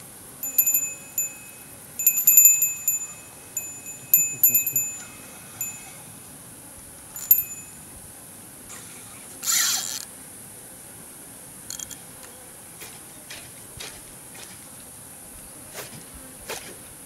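Small fishing bite-alarm bell jingling in short repeated rings as the line it hangs on is reeled in, with one more ring about seven seconds in. A short rushing noise follows a few seconds later, then a few faint clicks.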